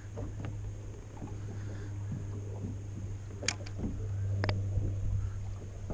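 Steady low hum with wind and water noise around a small fishing boat on choppy water, broken by a few sharp clicks about three and a half and four and a half seconds in.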